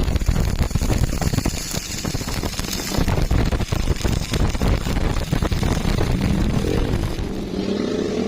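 Stick welding arc crackling and sizzling steadily, a dense run of rapid small pops.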